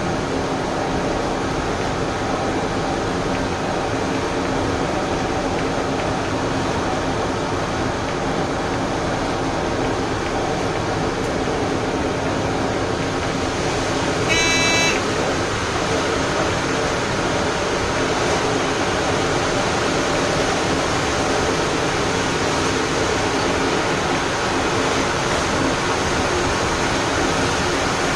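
Steady rumbling and rushing of trains running on the rails at speed, two trains side by side on parallel tracks. About halfway through there is one short buzzing beep.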